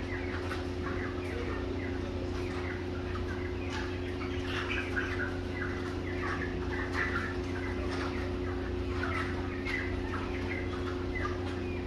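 A crowded flock of young chickens calling: many short, overlapping calls throughout, over a steady low hum.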